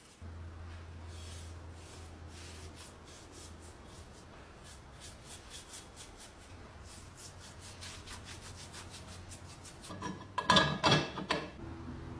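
A stiff-bristled brush scrubbing the surface of a cast-iron sad iron in quick repeated strokes. About ten seconds in there is a short clatter of loud knocks with a ringing, metallic tone.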